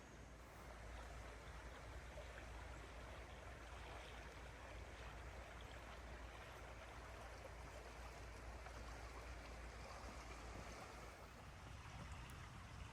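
Faint, steady rush of a creek's running water.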